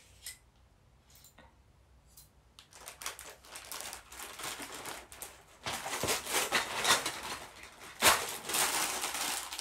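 Paper sheets and parts packaging rustling and crinkling as small kit pieces are handled. It starts about three seconds in and gets busier, with a few sharp clatters.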